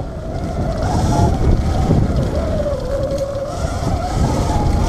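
Sur-Ron Light Bee X electric dirt bike riding fast on a dirt trail: a whine from the electric motor and drive that wavers up and down in pitch with speed, over tyre rumble and wind buffeting the microphone.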